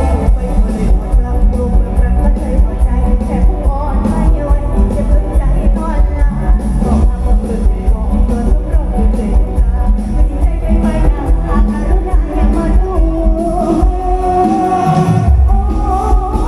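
Live band music with a singer over a loud, steady bass beat; the bass drops out for about a second near the end, then comes back in.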